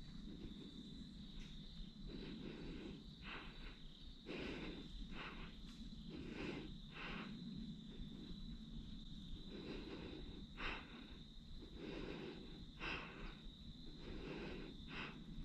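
Slow, irregular footsteps crunching on dry grass, gravel and fallen leaves, under a steady high-pitched drone of crickets or other insects.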